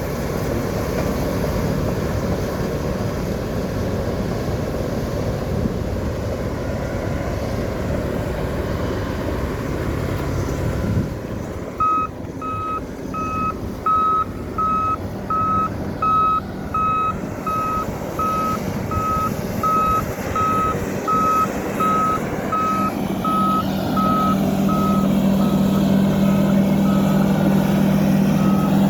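Bulldozer's diesel engine running, joined about twelve seconds in by its reverse alarm: a steady series of single-pitch beeps, about three every two seconds, as the machine backs up. Near the end the beeps fade and the engine grows louder under load.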